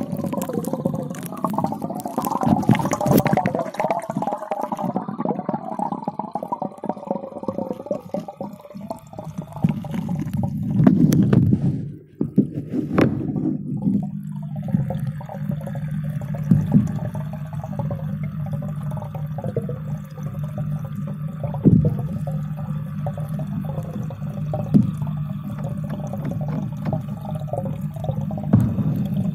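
Water in a fish tank heard through a submerged phone's microphone: muffled burbling and sloshing for the first half. About halfway through it settles into a steady low hum, with a few soft knocks.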